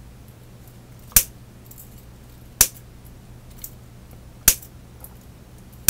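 Side cutters snipping through the wire leads of through-hole diodes, cutting them free on one side of the tape strip: a sharp snap roughly every one and a half seconds, four in all.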